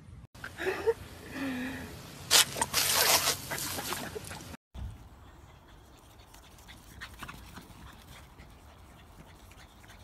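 A dog whining in short wavering notes, followed by a couple of seconds of loud, rough noise. The sound stops abruptly about halfway through, leaving only faint background with light scattered ticks.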